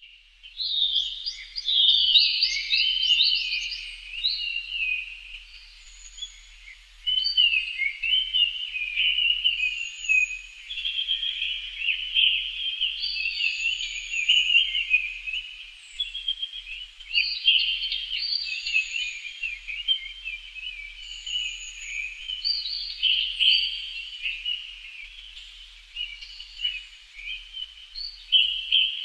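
Songbirds singing in a dense, continuous chorus of rapid chattering and twittering, with a short, very high thin note repeated every two or three seconds.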